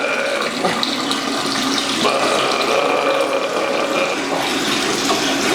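A hard, steady stream of liquid splashing into water, as of a man peeing hard into a toilet bowl, running for about five seconds.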